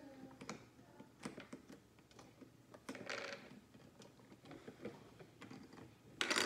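Plastic parts of a Play-Doh toy cash register clicking and knocking as it is handled, with a short rattle about three seconds in and a louder clatter near the end.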